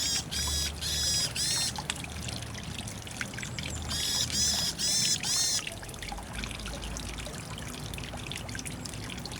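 Varied tit calling in two runs of about four quick repeated notes, the first at the start and the second about four seconds in, over the steady trickle of running water.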